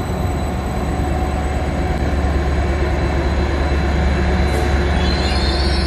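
Greater Anglia Class 755 bi-mode multiple unit running into the platform: a steady low rumble with wheel and body noise. A high whine rises near the end as it slows.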